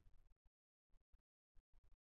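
Near silence: faint room tone that drops out entirely in places.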